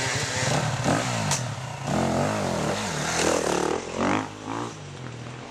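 Enduro dirt bike engine revving up and down several times as the rider goes past, with repeated rises and falls in pitch. It fades near the end.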